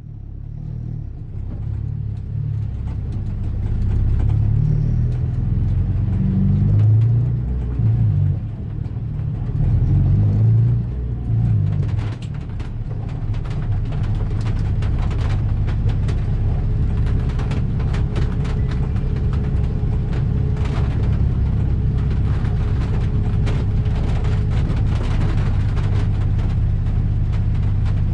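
Honda Integra DC5's four-cylinder engine running, its rumble rising and falling for the first twelve seconds and then holding steady. From about twelve seconds in, many sharp ticks of torrential rain and spray strike the car over the engine.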